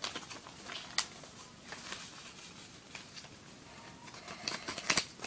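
Lined notebook paper being folded in half and creased by hand: scattered soft rustles and crinkles, with a cluster of sharper crackles near the end.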